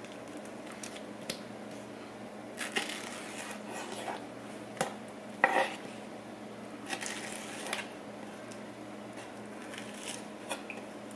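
Chef's knife slicing through fresh pineapple and knocking on a wooden cutting board: scattered single strokes and a few longer cuts through the fruit and its fibrous core. A steady low hum runs underneath.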